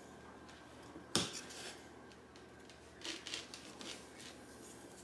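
Kitchen knife cutting through set fudge and knocking on a plastic cutting board: one sharp knock about a second in, then a cluster of lighter clicks and scrapes about three seconds in.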